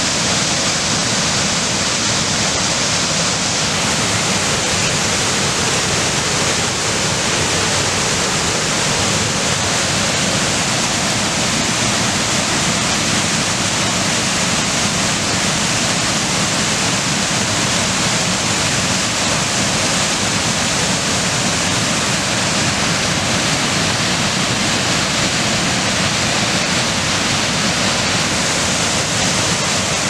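Whitewater waterfall rushing over rocks: a loud, steady, unbroken rush of falling water.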